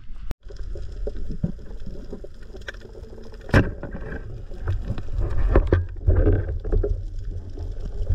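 Underwater sound as heard by a camera in its housing during a dive: a low rumble of water moving around the camera, louder from about five seconds in. Scattered clicks run through it, with one sharp click about three and a half seconds in.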